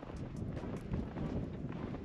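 Wind buffeting the microphone in an uneven low rumble, with a few faint footsteps crunching in snow.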